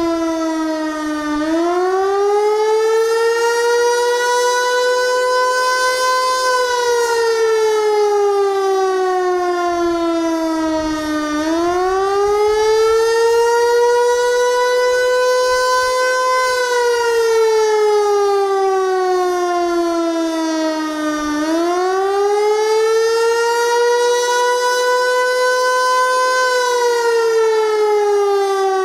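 Federal Signal Eclipse 8 electronic outdoor warning siren sounding a slow wail: the tone sweeps quickly up, then falls steadily, repeating about every ten seconds. It starts each rise about a second in, near the middle, and about two-thirds of the way through.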